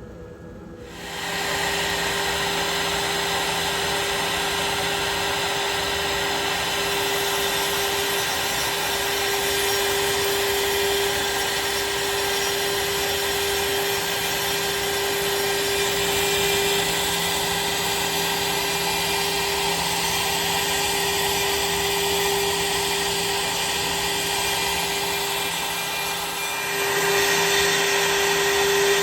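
PrintNC Mini CNC router's spindle running with a steady whine while milling a small magnet pocket into the aluminium wallet frame; it starts about a second in and gets a little louder near the end.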